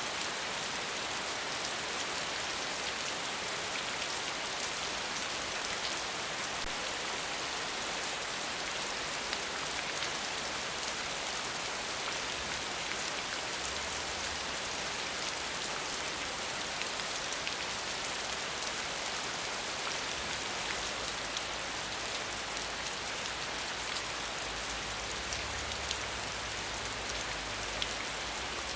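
Steady rain falling on a hard surface: a continuous even hiss with many fine individual drop taps.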